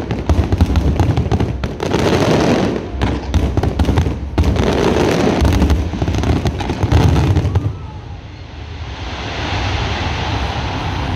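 Dense barrage of aerial fireworks shells bursting, with overlapping booms and sharp cracks. About eight seconds in the booming stops and only a softer, steady hiss carries on.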